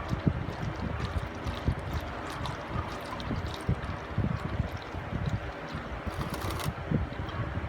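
Used engine oil draining in a steady stream from the Nissan 350Z's oil pan into a drain pan, with irregular low gusts throughout.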